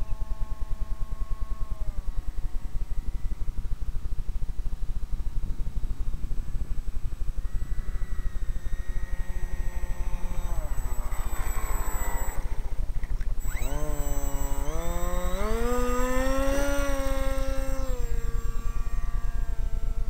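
RC flying boat's motor and propeller buzzing, the pitch dropping as the throttle is pulled back about two seconds in. Midway there is a rushing hiss as the hull skims the water, then the motor is opened up for the takeoff run, its pitch climbing steeply and holding high before easing back near the end.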